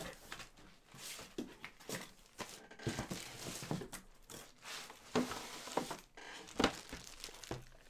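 Faint rustling and crinkling of packaging with scattered light clicks and knocks, as hard plastic graded-comic slabs are handled and taken from a shipping box.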